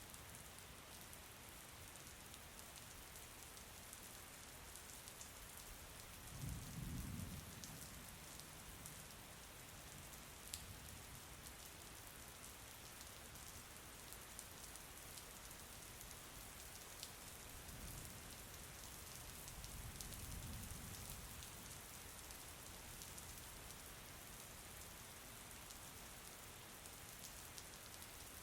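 Steady rain falling, with many fine drop ticks over an even hiss. A low rumble swells briefly about a quarter of the way in, and again around two-thirds through.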